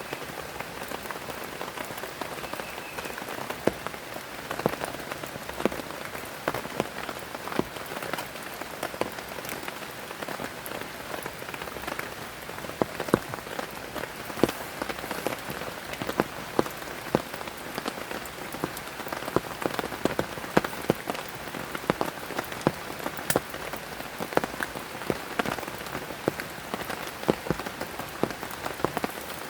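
Heavy rain falling steadily, a continuous hiss with many sharp, irregular drop impacts on a nearby surface.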